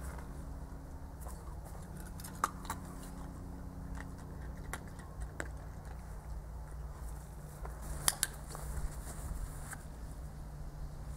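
A steady low hum with a handful of short, sharp clicks scattered through it.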